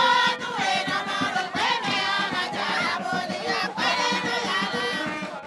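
A crowd of women and men singing together in chorus as they walk, many voices overlapping at once.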